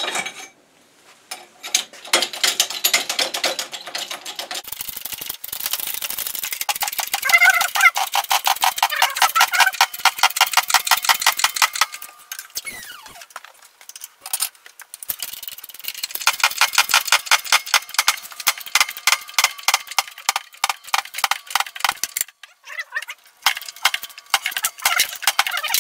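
Press-fit steel cylinder sleeve being forced into the heated aluminium block of a 1989 Mercury 115 outboard under a hydraulic bottle-jack press, with a rapid squawking metal chatter in several long stretches broken by short pauses. The heavy press fit makes the sleeve grab and slip in the bore as it goes in.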